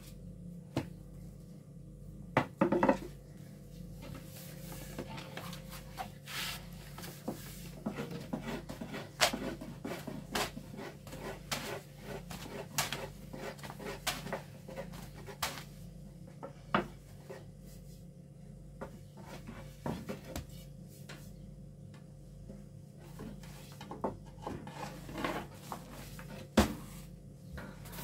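Long thin wooden rolling pins knocking and rolling on low round wooden boards as flatbread dough is rolled out. Irregular sharp taps and clacks come every second or so over a steady low hum.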